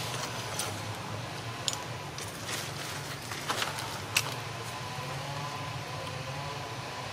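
Outdoor background with a steady low hum and a faint steady high tone, broken by about five sharp clicks or crackles between two and four seconds in, the last one the loudest.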